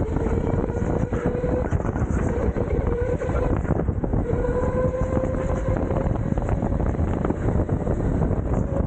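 Electric rental go-kart at speed, heard from the driver's seat: a motor whine that rises in pitch as the kart accelerates, dips briefly about three and a half seconds in, then climbs again, over a dense rattling, rushing noise.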